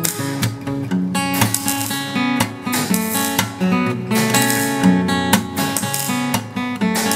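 Solo acoustic guitar music, with quickly plucked and strummed notes.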